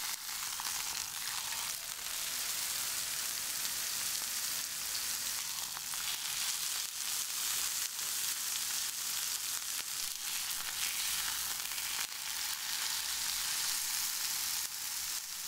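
Beef roast sizzling as it browns in hot oil in a large nonstick skillet: a steady hiss with small crackles.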